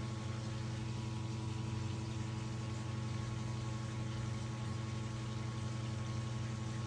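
Pump running with a steady low hum while pumping water out of a flooded basement.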